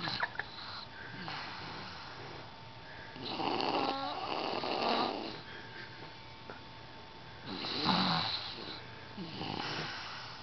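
A sleeper snoring heavily: two long, loud snores about four seconds apart, with quieter breaths between them.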